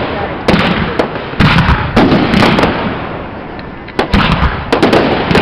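Aerial fireworks bursting overhead: a run of sharp, loud bangs, several close together, each trailing off into echo and crackle.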